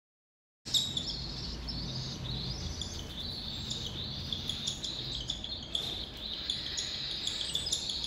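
Baby cockatiel chicks giving rapid, raspy food-begging calls while being hand-fed from a syringe. The sound starts suddenly less than a second in and keeps going without a break.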